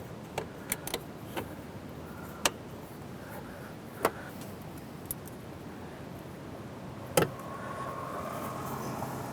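Scattered light metallic clicks and taps as bolts and nuts are handled and fitted to an RV holding-tank gate valve flange, with one louder knock about seven seconds in. A steady background hum runs underneath.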